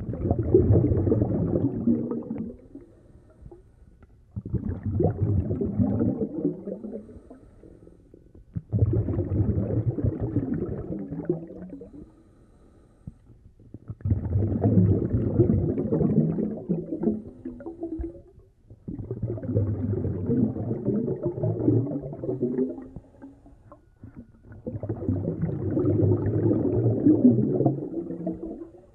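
Scuba diver breathing through a regulator underwater: the exhaled bubbles come in gurgling bursts of a few seconds each, six breaths spaced about four to five seconds apart, with quieter gaps for the inhalations.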